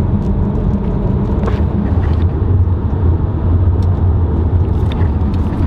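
Steady low drone of engine and tyre noise heard inside a car's cabin at road speed while it tows a trailer, with a few light clicks.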